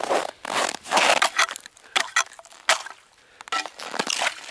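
Footsteps crunching in uneven bursts on cold, dry snow, and a hand scraping through the snow near the end.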